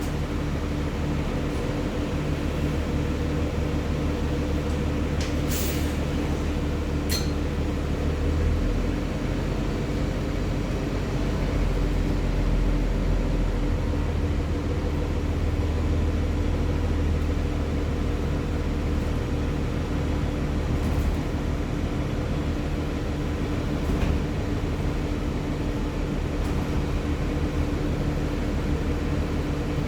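Nova Bus city bus engine and ZF automatic transmission running, heard as a steady drone whose low pitch shifts about nine seconds in and again around fourteen seconds. Two brief hissing or clinking sounds come a few seconds in.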